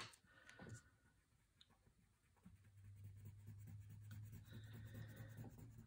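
Faint rubbing of a wax crayon colouring on paper, opening with a light tap and steadier from about halfway through.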